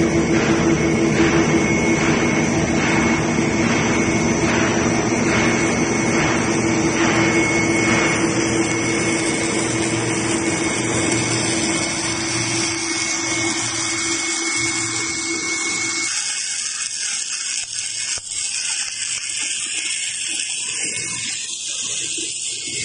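Snack-food extrusion line machinery running: steady machine noise with a constant motor hum and a faint regular pulse about once a second. About two-thirds of the way through, the hum stops and the low sound drops away, leaving a thinner hiss.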